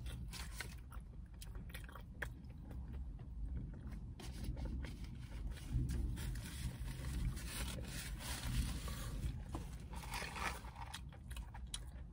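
Close-up chewing and crunching of a mouthful of crispy fried chicken sandwich, with small wet mouth clicks, and a paper napkin rustling near the middle.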